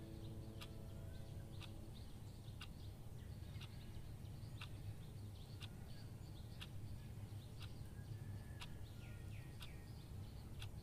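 Faint ambience: small birds chirping, a light ticking about every two-thirds of a second, and a low hum. The tail of a music cue fades out in the first two seconds.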